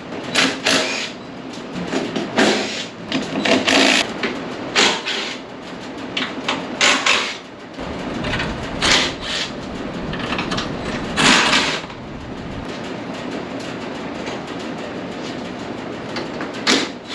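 Cordless power driver with a socket spinning in about ten short bursts over the first twelve seconds, running bolts off a go-kart's rear wheel and frame during teardown.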